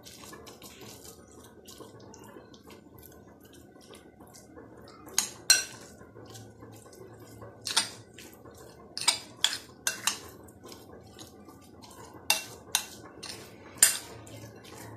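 Metal spoon clinking and scraping against a glass bowl while mashing boiled eggs, with irregular sharp clinks that grow louder and more frequent from about five seconds in.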